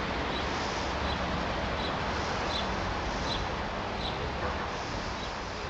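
Steady outdoor rumble and hiss, with a small bird chirping short high notes at an even pace, about one every three-quarters of a second.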